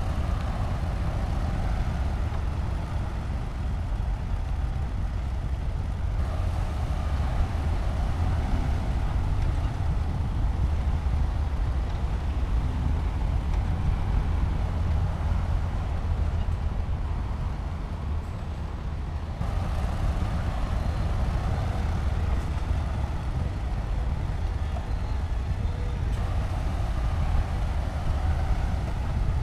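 Diesel engine of heavy earthmoving machinery running steadily with a deep rumble. The sound changes abruptly about six seconds in and again near nineteen seconds.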